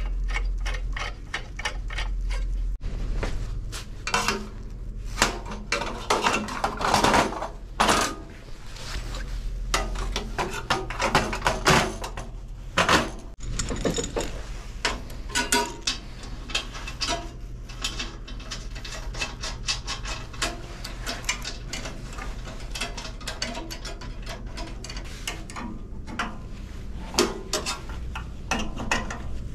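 Metal tools and espresso-machine pipe fittings clinking and clicking as a pipe is fitted and its fittings are tightened with an adjustable wrench, in many short irregular taps. A steady low hum runs underneath.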